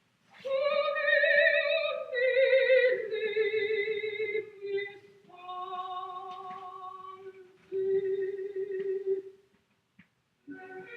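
Opera-style singing: a series of long held notes with wide vibrato, the first ones sliding downward in pitch, broken off by a short pause about nine and a half seconds in.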